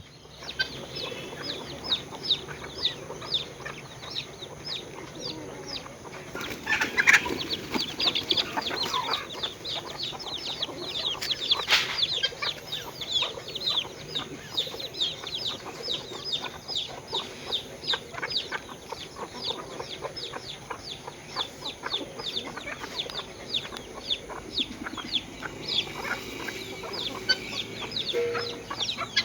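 Aseel chickens calling: a continuous string of short, high chirps, about four a second, with a few louder calls about seven and twelve seconds in.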